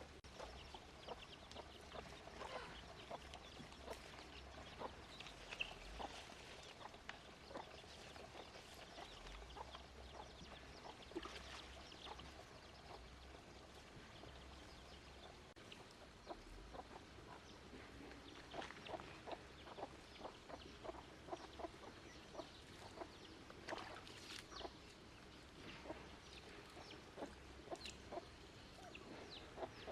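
Chickens clucking faintly, a scatter of short clucks that come in quicker runs in the second half.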